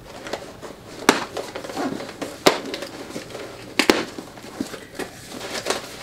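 Hands opening a package: paper and cardboard packaging rustling and crinkling, with three sharp snaps about one, two and a half and four seconds in.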